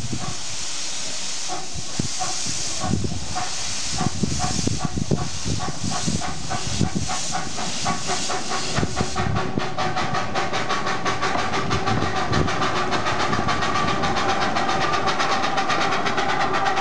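A 10.25-inch gauge 2-4-2T miniature steam locomotive approaching: steady steam hiss and rhythmic exhaust chuffs that come closer together. From about halfway the sound turns into a dense, fast clatter of wheels and motion, growing a little louder as the engine passes close.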